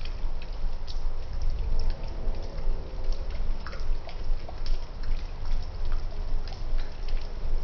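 Water dripping and trickling, with many scattered sharp drips over a steady low rumble.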